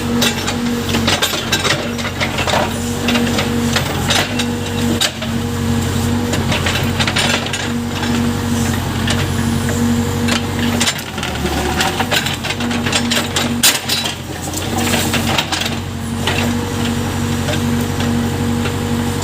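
Case Super K backhoe loader's diesel engine running steadily at work, with many sharp knocks and clanks over it throughout.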